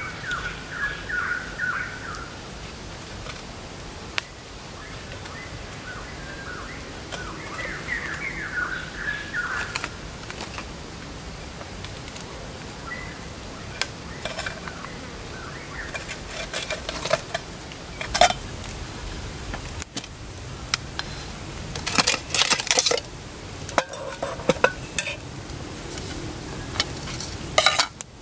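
Metal camping cookware clinking and clanking as pots, a lid and a mug are set down and handled, in scattered sharp knocks that cluster from about halfway through, loudest near the end. Bird chirps in the first couple of seconds and again about eight seconds in.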